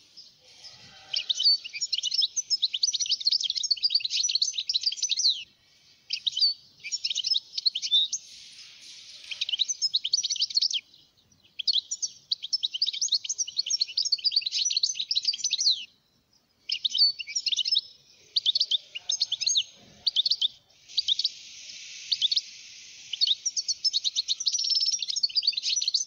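European goldfinch singing: long runs of quick, tinkling twitters broken by short pauses.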